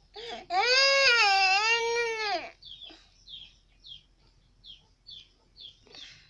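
An infant gives one long wailing cry of about two seconds that rises and falls in pitch. It is followed by short, high bird chirps repeating about twice a second.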